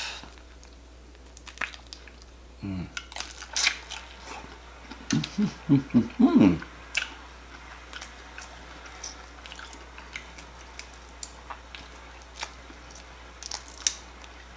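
Cooked jumbo shrimp being peeled and eaten: scattered small crackles and clicks of shell and chewing, with a few short hums of enjoyment about three and five to seven seconds in.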